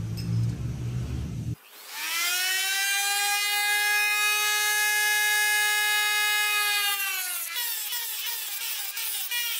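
A small electric power tool whining at a steady high pitch: it comes up to speed, holds for about five seconds and sags, then gives way to a run of quick rubbing strokes, two or three a second. Before it, a low machine rumble cuts off abruptly.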